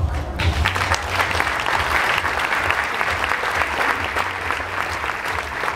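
Audience applauding: many hands clapping break out about half a second in and carry on at a steady level.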